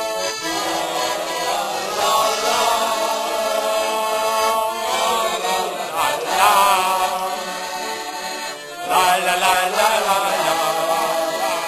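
A group of voices chanting a song together over music.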